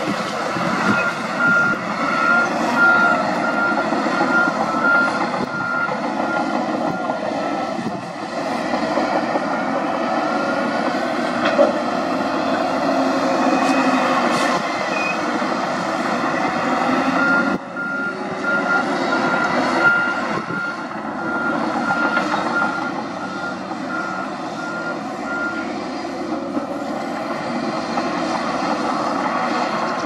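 Diesel engines of a Shantui crawler bulldozer and an SDLG wheel loader running steadily under load as they push rock and dirt. A reversing alarm beeps steadily in two stretches, from near the start to about seven seconds in and again from about halfway to twenty-five seconds in, as a machine backs up.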